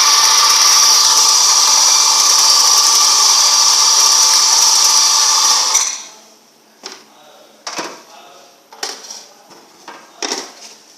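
Coffee grinder running steadily as it grinds beans, cutting off about six seconds in; several light knocks follow.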